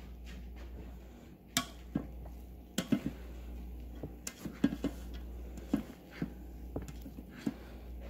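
A utensil clicking and scraping against the pressure cooker's inner pot as freshly cooked rice is stirred, in irregular taps about a dozen times, over a steady low hum.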